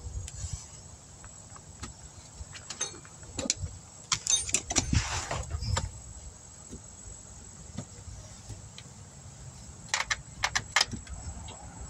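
Scattered light metallic clicks and clinks from handling the brake caliper slide pins as they are re-greased and fitted, with a busier run about four to six seconds in and a few sharper clicks near the end.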